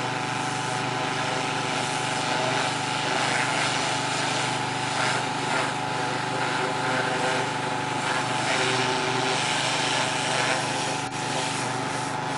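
A petrol pressure washer running steadily: a small engine's even drone under a constant hiss of spray.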